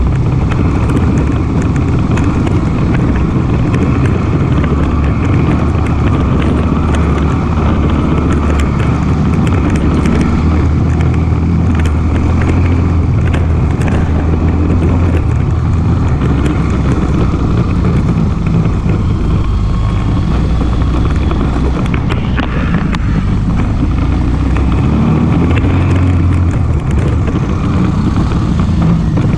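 ATV engine running steadily while riding, with frequent small rattles and knocks over the low engine note.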